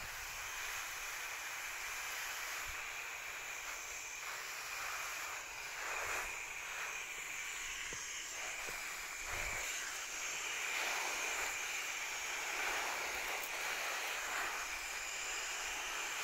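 Garden hose shower nozzle spraying water onto large leaves and soil: a steady hiss of spray with water pattering on the foliage.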